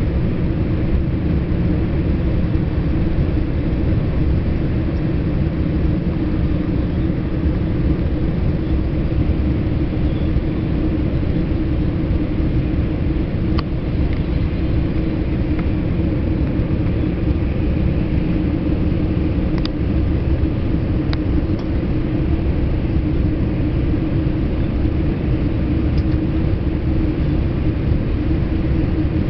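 Steady rumble inside the cabin of a Boeing 787-8 airliner, with a few faint clicks.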